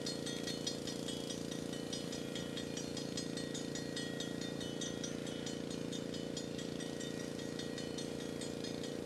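Steady low engine drone, as of an idling engine, with rapid high-pitched ticking layered over it.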